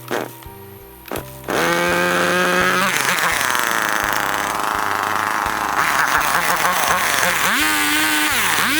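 Chainsaw running at speed, starting abruptly about a second and a half in, with its pitch swinging up and down near the end as the trigger is worked. Its chain has been fitted backwards, so it is not cutting properly.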